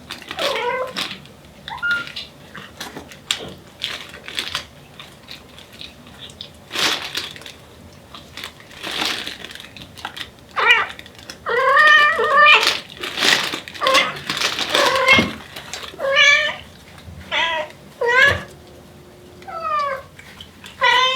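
Devon Rex mother cat calling for her kittens: a long series of separate meows and chirping, wavering calls, some rising in pitch, a dozen or more in all, with brief noisy sounds between them.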